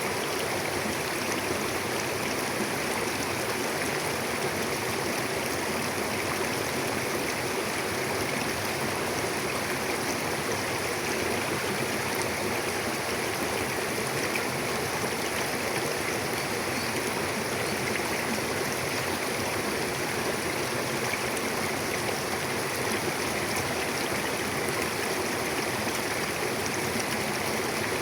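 Mountain river flowing over rocks: a steady, unbroken rush of water.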